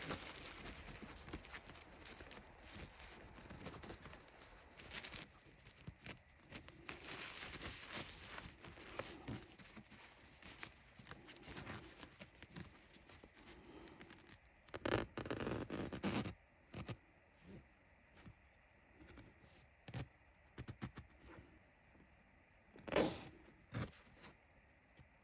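Tent fabric rustling and scraping as a rolled-up flap on the tent wall is handled and tied back by hand, with a couple of louder rustles in the middle and near the end.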